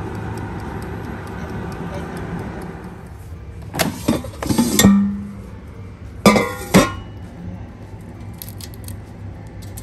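Air fryer running with a steady hum, then its basket drawer pulled out: a cluster of loud plastic-and-metal clacks about four seconds in and two more sharp clacks about six seconds in.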